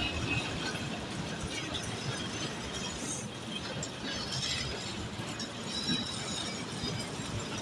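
Freight train rolling past: continuous rumble of steel wheels on the rails with scattered metallic clanks and a brief high squeal about halfway through.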